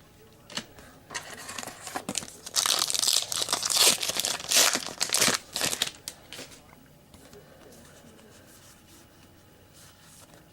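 Trading card pack wrapper crinkling and tearing as the pack is ripped open and handled, in irregular crackles for about six seconds before it stops.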